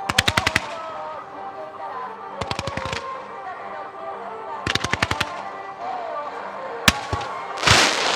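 Fireworks bursting: three quick volleys of rapid sharp bangs, each about ten pops in half a second. A single sharp bang near the end is followed by a louder, noisier burst.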